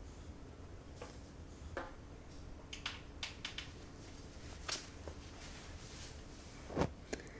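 Quiet room with scattered small rustles and clicks of a person moving and handling clothing, and one louder soft thump near the end.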